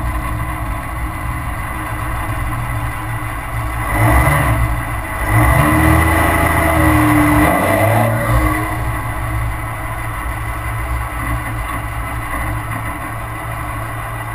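2002 Dodge Ram's 5.9-litre Cummins straight-six turbo diesel, heard close to the tip of its 4-inch straight-pipe exhaust along with wind and road noise while driving. About four seconds in it gets louder under hard acceleration for about four seconds, its pitch rising and then falling, before settling back to a steady, quieter run.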